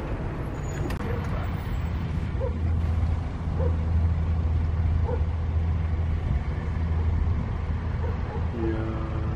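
Ivchenko AI-24 turboprop engines of a taxiing Antonov An-24 running: a steady low drone that swells in the middle.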